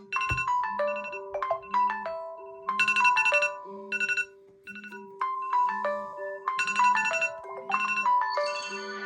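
Electronic phone ringtone melody: bright chiming notes over a held tone and a regular low pulse.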